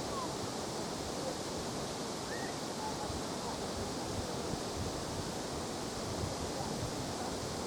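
Strong wind blowing steadily over the Dnieper river, with waves washing and gusts buffeting the microphone.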